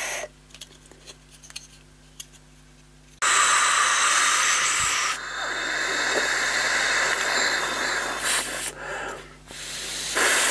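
Air blown hard by mouth through the water filler channel of a Guzzlers water-activated toy car: a loud breathy rush lasting about five seconds, starting about three seconds in, then a second shorter blow near the end.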